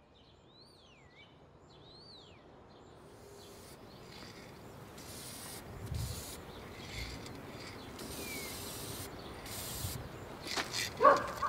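Two bird calls near the start, each a whistled sweep that rises and falls. Later come short hisses from an aerosol spray-paint can, and about eleven seconds in, a loud rattling as the can is shaken and its mixing ball knocks inside.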